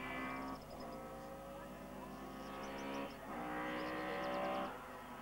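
Rally car's engine pulling hard through the gears as the car approaches, the note cutting off briefly at each gear change, about half a second, three seconds and nearly five seconds in, and growing louder up to the last change.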